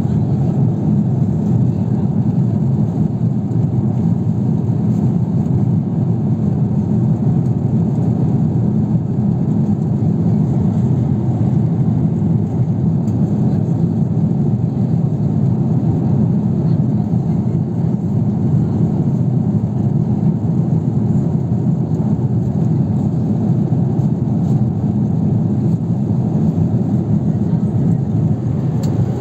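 Steady cabin noise inside a Boeing 777-300ER in cruise: a deep, even rush of engine and airflow noise heard at a window seat, unchanging throughout.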